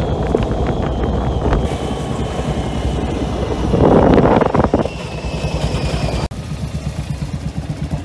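Quad-bike (ATV) engine running as it rides a dirt track, with a louder stretch of noise about four seconds in. After a cut a little past six seconds, ATV engines idle with an even low throb.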